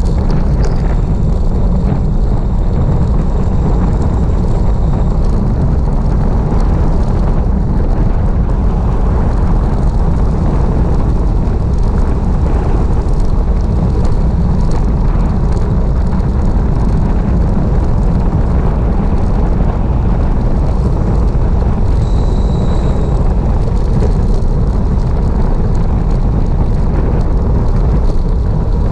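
Wind buffeting the microphone of a bike-mounted camera on a fast bicycle descent. It is a loud, steady, low rumble with no let-up.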